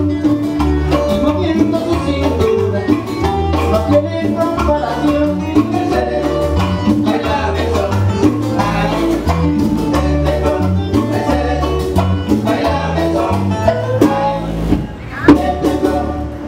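Live Dominican son band playing with a singer. Near the end the music dips briefly and closes on a sharp final accent.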